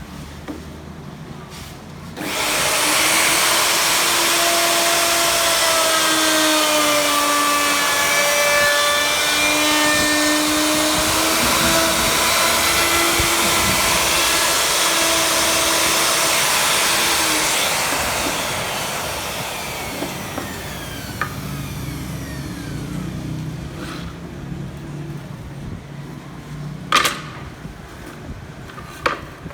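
An electric power tool's motor running at high speed, its pitch dipping and recovering as it works, then switched off and winding down; a few sharp knocks follow near the end.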